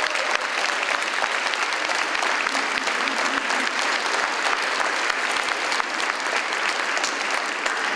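An audience applauding steadily, many hands clapping, for several seconds.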